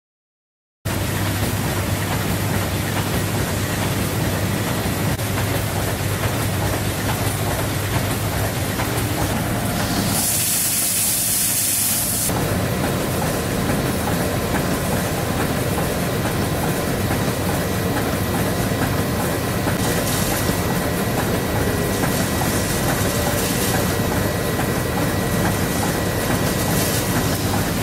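Automated LEGO minifigure assembly machinery running: a steady mechanical clatter and hum that starts suddenly about a second in. About ten seconds in comes a loud burst of hissing air lasting about two seconds.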